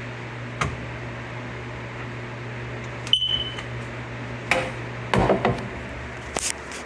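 One short, high smoke-alarm chirp about three seconds in, among a few sharp clicks and knocks over a steady low hum.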